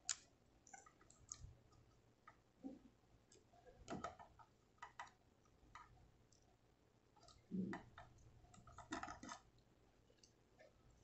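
Faint, scattered clicks and taps of a small toy transforming figure's joints and panels being moved by hand, a few louder clicks among them.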